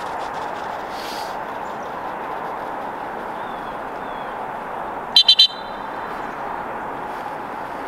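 Three quick, sharp blasts on a gun dog training whistle, the multi-toot signal calling the retriever in, over a steady background hiss.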